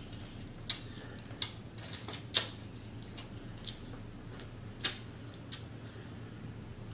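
About eight sharp, separate clicks and light crackles, spaced irregularly, as seafood-boil food is handled close to the microphone. A faint steady low hum runs under them.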